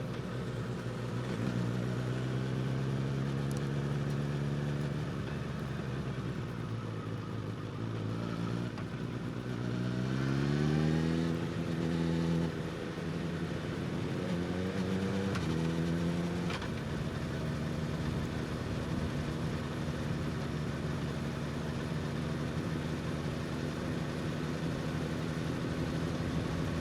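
Suzuki GSX-S1000 inline-four motorcycle engine with a slip-on exhaust at low speed, running steadily. About ten seconds in it revs up briefly, rising in pitch, then drops back to a steady low drone.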